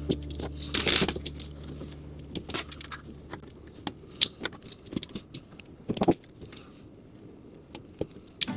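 Plastic LEGO Technic pieces clicking and rattling as they are handled and fitted together: irregular sharp clicks, a few louder snaps, with quiet gaps between them.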